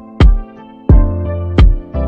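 Background music with a strong, steady beat about every 0.7 seconds over a deep bass line and held chords.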